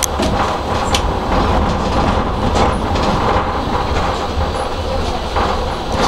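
A tram running on street track, its steel wheels rumbling steadily on the rails with a few sharp clicks as they pass over the rail joints and crossings of a junction, and faint brief wheel squeaks.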